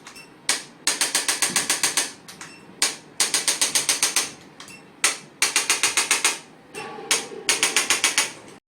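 A handheld chiropractic adjusting instrument clicking in rapid bursts as it delivers thrusts along the spine. There are four bursts of about a second each, roughly ten clicks a second, each led by a single click.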